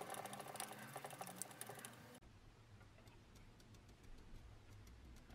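Screwdriver driving small slotted screws into a pressed-steel toy aeroplane wing: quick, faint metal-on-metal clicks and scrapes. They stop abruptly about two seconds in, leaving only a few faint scattered ticks.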